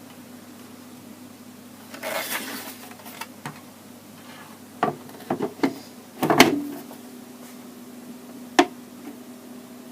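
Handling of an open Commodore 1541 disk drive: clicks, taps and a rustle over a constant low hum. About six seconds in there is a loud clunk, after which a second steady hum sets in, the newly mounted cooling fan and drive starting to run.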